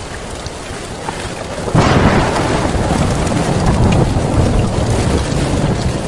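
Heavy rain falling steadily, then a loud thunderclap breaks in just under two seconds in and rolls on as a long, deep rumble.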